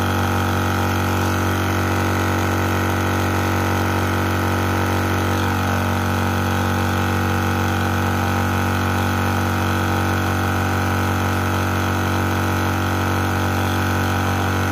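AceEagle electric high-pressure PCP air compressor running steadily as it fills an aluminium air cylinder partway, past about 106 bar: a constant hum with a higher tone above it.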